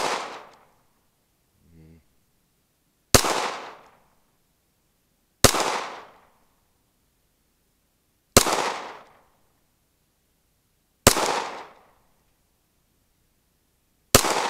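Five slow, aimed shots from a 9mm Glock 19 pistol, two to three seconds apart, each sharp crack trailing off over about half a second.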